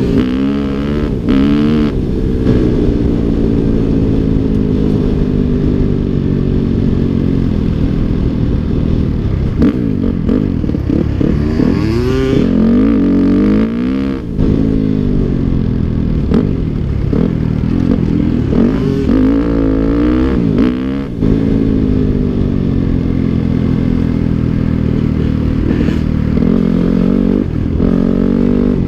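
Dirt bike engine under way on a gravel road, its pitch repeatedly climbing under throttle and dropping back as the rider shifts and eases off.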